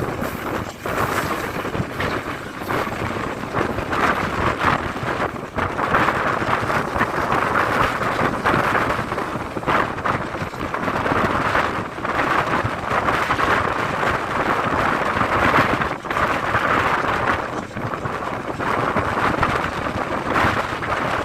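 Passenger train running at speed, heard from inside the carriage: a steady loud rush of noise with rapid clatter throughout.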